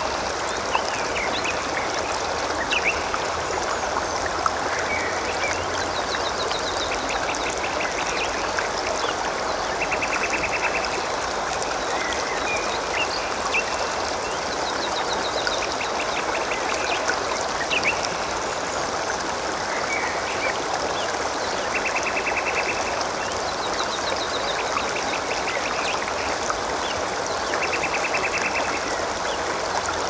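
Shallow water gurgling and flowing steadily, with short, rapid trilled calls from birds repeating every few seconds and scattered brief chirps above.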